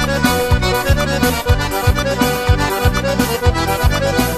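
Instrumental forró music: an accordion holds the melody over bass and a steady, quick drum beat, with no singing.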